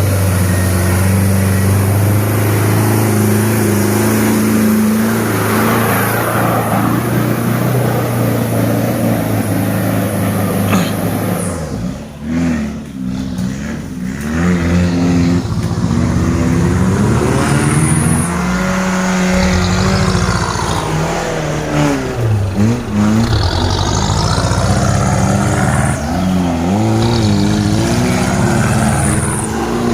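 Toyota Land Cruiser Prado's diesel engine revving up and down under load as the 4x4 works through mud, the engine note repeatedly rising and falling, with a brief drop about twelve seconds in.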